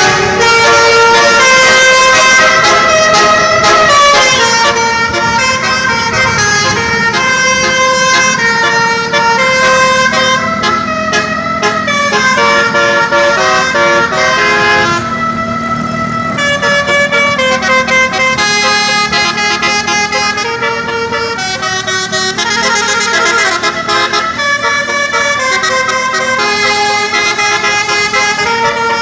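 Bus's basuri musical air horn playing a long melody, held horn notes stepping from pitch to pitch like a tune.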